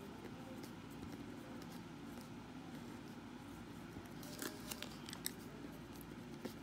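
Pen scratching on paper in short writing strokes, with a few sharper ticks about four to five seconds in, over a faint steady hum.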